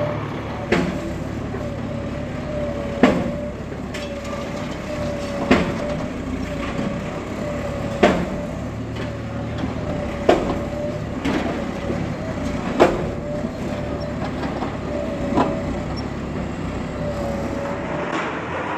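A bulldozer's diesel engine running steadily with a wavering whine, and sharp knocks about every two and a half seconds, seven in all, during demolition work.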